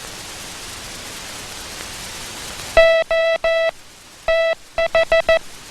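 Morse code sent as steady-pitched beeps over a hiss. About three seconds in come three long dahs (O), a pause, one dah (T), then four quick dits (H). The gap before the H is shorter than the gap before the T, so the letter spacing is off.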